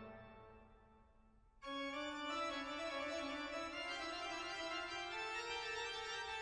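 Background music of slow, sustained keyboard chords: a held chord fades out, and after about a second and a half a new chord comes in suddenly and holds, with a lower note stepping slowly upward.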